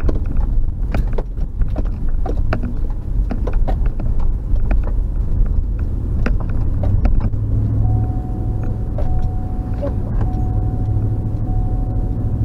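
Car heard from inside the cabin: steady low engine and road rumble, with frequent short knocks and rattles over the first several seconds while the car moves from the rough sandy shoulder onto the road. From about eight seconds in it settles into a smoother drone with a faint steady whine.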